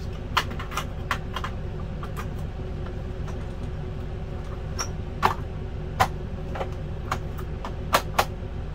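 Light clicks and knocks of hands working at an RV refrigerator's frame, with a few sharper taps about five, six and eight seconds in, over a steady low hum.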